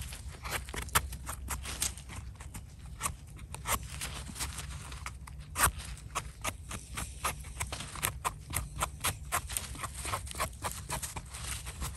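Small knife scraping and trimming the dirty stem of a freshly picked bolete mushroom: a quick, irregular run of short scratchy clicks.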